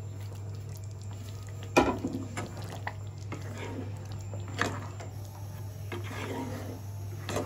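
A metal spatula stirring thick paneer gravy in a kadai: soft wet squelching, with a few sharp knocks of the spatula against the pan.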